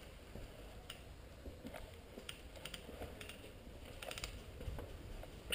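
Light, scattered clicks and crunches of someone moving over a concrete floor strewn with rubble, some coming in quick little clusters.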